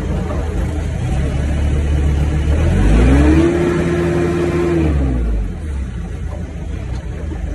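Forklift engine running, revving up about three seconds in, holding a steady higher pitch for a second or two, then dropping back to idle, as the hydraulic control levers are worked and the engine takes up the hydraulic load.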